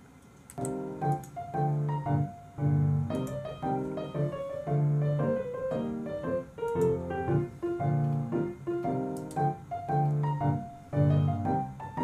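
Piano background music, with a melody over chords repeated in a steady rhythm, starting about half a second in.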